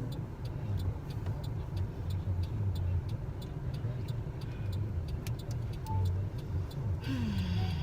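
Car interior while driving: a steady low engine and road rumble, with a faint, even ticking about three times a second, like a turn-signal indicator.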